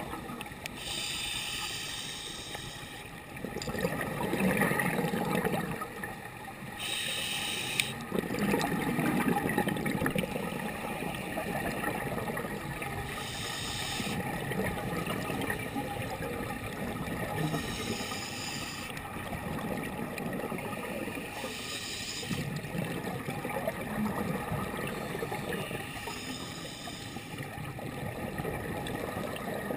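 Underwater scuba breathing through a regulator: bubbling, rumbling exhalations alternating with short hissing breaths, repeating every few seconds.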